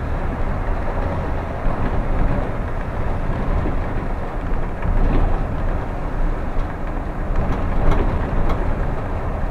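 Steady low engine and road rumble inside a double-decker coach on the move, with a few faint clicks near the end.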